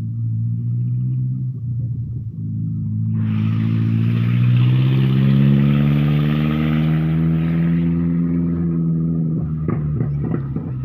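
Speedboat engine running loud and speeding up: its hum climbs in pitch from about three seconds in, while a rushing hiss comes in alongside and dies away near the end.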